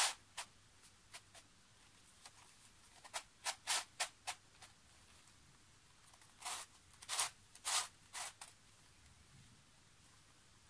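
Plastic pieces of a 3D-printed Spartacus twisty puzzle scraping and clicking as its faces are turned by hand: a series of short faint rasps, bunched around three to four seconds in and again around seven to eight seconds in.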